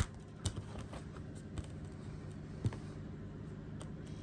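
Light plastic clicks and taps from Blu-ray cases being handled: a sharp click at the start, a few smaller ones about half a second and nearly three seconds in, over a steady low hum.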